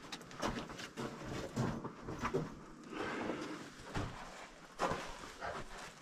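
Irregular footsteps, scuffs and small knocks on the rocky floor of a mine tunnel.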